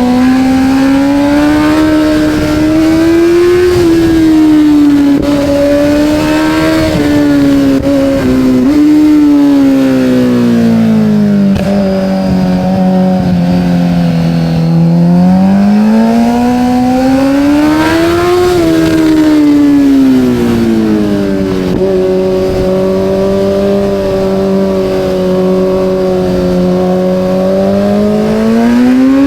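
Kawasaki Z900's inline-four engine on the move, its pitch rising and falling as the rider accelerates and eases off. The note drops suddenly about eight seconds in, then climbs to a peak, holds steady for a long stretch, and rises again near the end.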